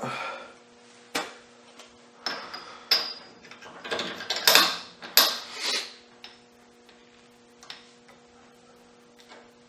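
Metal tools and parts being handled at a milling machine: a string of sharp clinks and scrapes, some with a brief high ring, loudest about four to six seconds in, over a faint steady hum.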